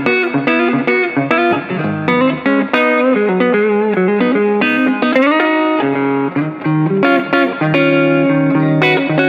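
Westcreek Helios electric guitar played through pedals, likely the neck pickup with a compressor: a run of quick picked single notes, a string bent upward about halfway through, then longer held notes near the end.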